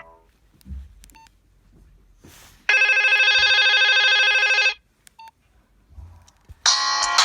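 Nokia 2323 classic phone's loudspeaker: a short key beep, then a loud, buzzy electronic tone held steady for about two seconds, and another short key beep. Near the end the next ringtone's music starts.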